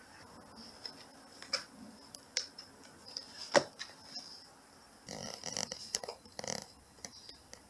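A cat scratching and pawing at paper and corrugated cardboard in a cardboard box bed. A few sharp scrapes and taps come first, the loudest about three and a half seconds in, then a second and a half of dense rustling and scratching from about five seconds in.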